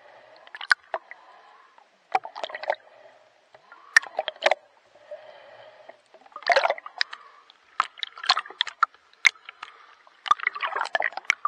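Water splashing and sloshing in irregular bursts, every second or two, from a swimmer's strokes close to the microphone.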